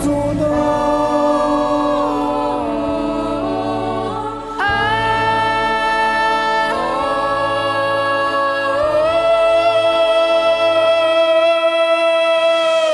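A male singer holds long wordless "ah" notes live into a microphone, stepping up in pitch through several sustained tones with a clear jump upward after a brief dip about halfway through, over low sustained accompaniment.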